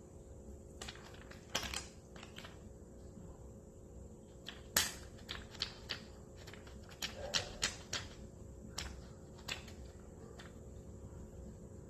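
Plastic crinkling and crackling in short irregular bursts as a cat plays with it. The loudest crackle comes about five seconds in, with a quick cluster a little later.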